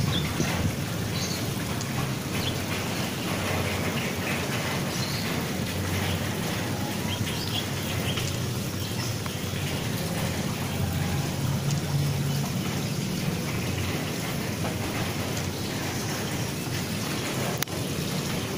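Steady patter of rainwater on corrugated metal roofs after a shower, with a low rumble underneath.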